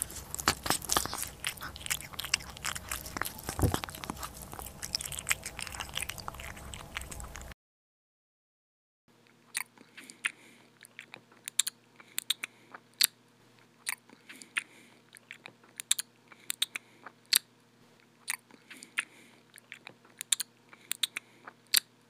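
Crunchy food being bitten and chewed. A dense run of crunches lasts about seven seconds and breaks off into a short silence. A second clip follows with sharper, sparser crunches, about two a second.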